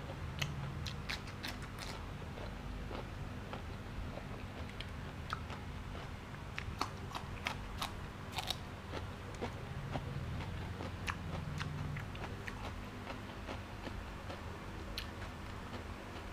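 A person chewing and biting raw food: crisp crunches of fresh vegetables such as a spring onion stalk, mixed with wet mouth clicks. The crunches come in clusters near the start and again about seven to eight seconds in.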